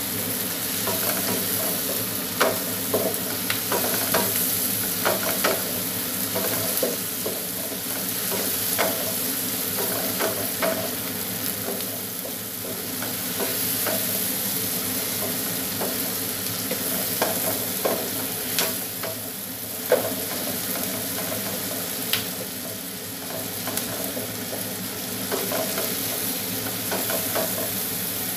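Diced tomato, onion, garlic and pork sautéing in coconut oil in a frying pan, a steady sizzle, while a wooden spatula stirs and scrapes, knocking against the pan at irregular moments. The loudest knock comes about two-thirds of the way through. The mix is being sautéed until the tomatoes cook down.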